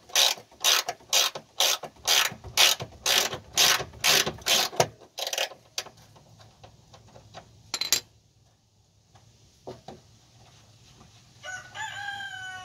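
Socket ratchet wrench clicking in quick back-and-forth strokes, about two a second, as a fuel-tank strap nut is run loose; the strokes stop about five seconds in, leaving a few scattered clicks. Near the end a long pitched call rises in the background.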